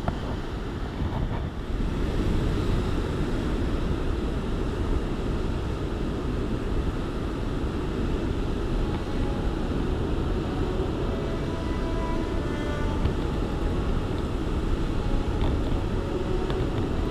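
Steady low rumble of sea surf with wind on the microphone.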